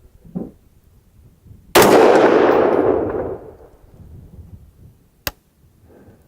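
A single rifle shot from a Daniel Defense DDM4v11 AR-15-type rifle in .223 Remington about two seconds in, its report rolling away for over a second. A short sharp click comes near the end.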